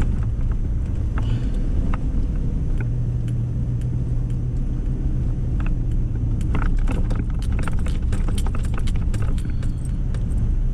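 Steady low rumble of a four-wheel-drive pickup truck driving on a snowy, rough road, heard inside the cab. Around the middle and toward the end comes a dense run of sharp rattles and clicks as the truck jolts over broken, rutted pavement.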